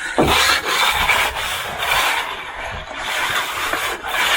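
A finishing tool scraping and rubbing across setting concrete in repeated strokes.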